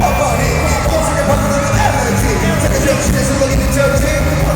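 Loud live pop music played over a concert sound system: a steady beat with singing.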